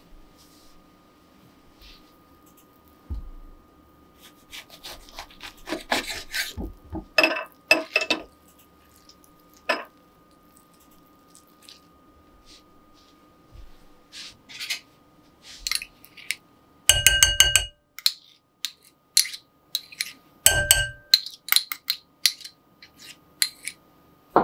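Kitchen prep sounds of glass bowls and utensils clinking and rubbing while yuzu pulp is pressed through a small stainless mesh strainer. About two-thirds of the way through there are two short bursts of rapid, ringing metallic clinks.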